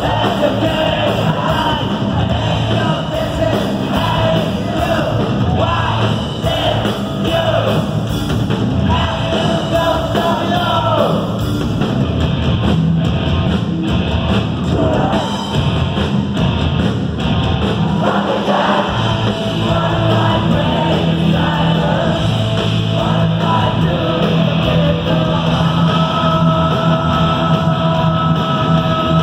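A gothic metal band playing live, heard from the audience: electric guitars, bass and drums under a sung vocal line, with some longer held notes near the end.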